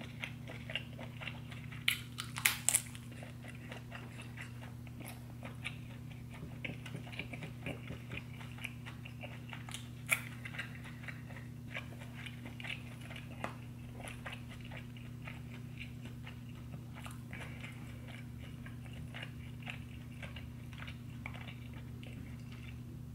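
Close-miked mouth sounds of a person chewing and eating a buttery seafood boil: wet smacking and clicking throughout, with a few louder sharp clicks about two to three seconds in and again near ten seconds, over a steady low hum.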